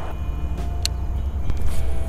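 Steady low rumble of wind buffeting the microphone, with a sharp click a little under a second in.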